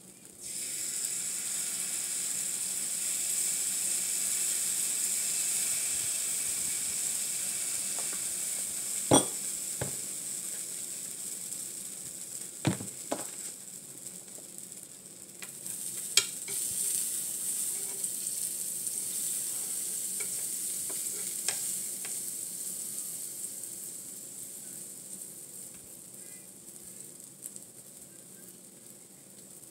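Mini pancake batter sizzling on a hot flat-top griddle. The sizzle starts about half a second in as the batter is squeezed on, swells again about halfway through, then fades over the last several seconds. A few sharp clicks sound along the way.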